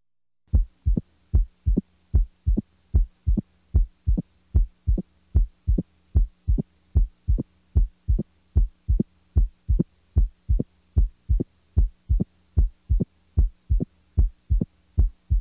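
Heart sounds through a stethoscope with an opening snap: short, sharp beats in an even rhythm, about two and a half a second, the snap following the second heart sound early in diastole, typical of mitral stenosis. A faint steady hum runs underneath.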